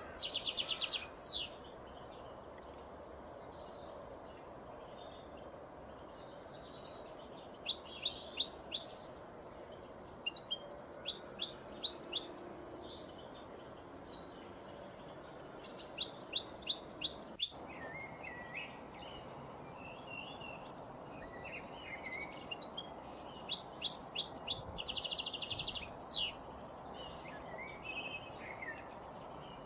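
Songbirds singing: one bird repeats a short phrase of rapid high notes every few seconds, about six times, with softer chirps from other birds in between over a steady background hiss.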